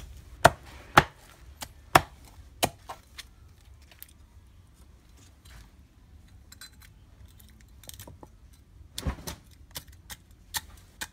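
A series of sharp, irregular knocks or chops: four loud strikes in the first three seconds, a quieter stretch, then another cluster of strikes near the end.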